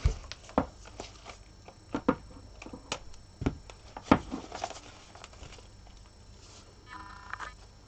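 Handling sounds from taping a resin doll: a string of irregular light knocks and taps as the doll and rolls of painter's tape are picked up and set down on the table, the sharpest about four seconds in, with softer rustles of tape between. A short squeaky tone sounds near the end.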